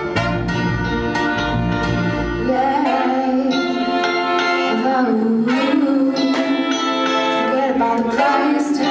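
Live reggae band playing, with trumpet and saxophone, drums, bass and a female lead vocal. The deep bass drops away about two and a half seconds in, leaving held melodic lines over the band.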